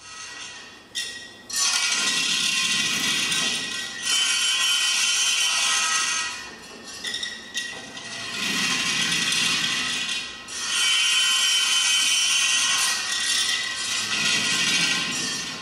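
A feather brush on a wind-driven arm scraping and rattling over a cast-metal flameproof switch housing, a loud scratchy rasp with a metallic ring. It comes in surges: it swells about a second and a half in, and eases off twice, around six to eight seconds and near ten seconds.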